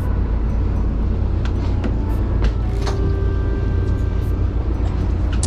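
Steady low rumble of a fishing boat's engine running while the boat sits on the water, with a few faint short clicks and some faint held tones of background music.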